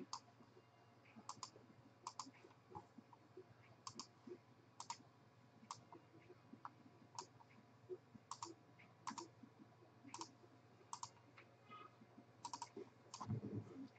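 Faint computer mouse clicks, many in quick pairs, about one every second, as a list randomizer and spreadsheet are worked. A brief low sound comes about a second before the end.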